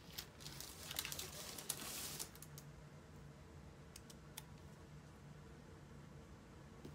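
Sticker sheet and paper crinkling and rustling for about the first two seconds, then a few light taps and ticks as stickers are handled and pressed onto the planner page.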